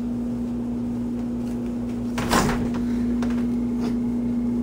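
Refrigerator door being opened: a few light clicks and a short, louder rustling clunk about two seconds in, over a steady low hum.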